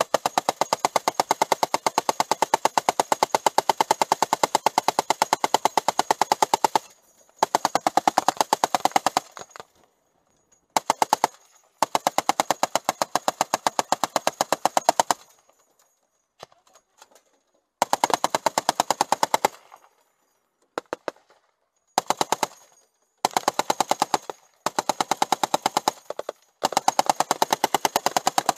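Belt-fed machine gun mounted on a Humvee turret firing: one long burst of about seven seconds, then a string of shorter bursts with brief pauses between them.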